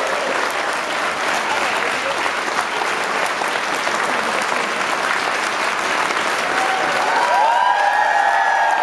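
Theatre audience and cast applauding steadily, with a few voices calling out near the end.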